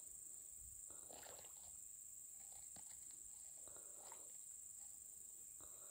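Near silence: faint outdoor ambience with a steady high hiss and a few soft, faint sounds.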